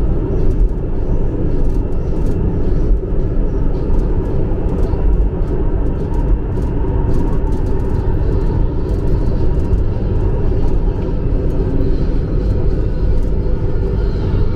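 MRT-3 light-rail train running, a steady loud rumble of wheels and running gear on the rails, with scattered light clicks.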